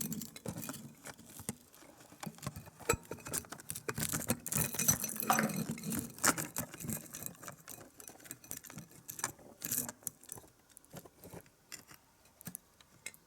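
Handling noise of a camera and its quick-release plate being fitted onto a tripod head by hand: a run of irregular clicks, taps and light rattles. They thin out near the end.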